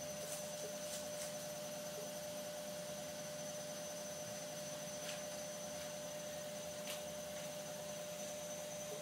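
Steady room hum and hiss with a steady electrical whine, broken by a few faint soft clicks.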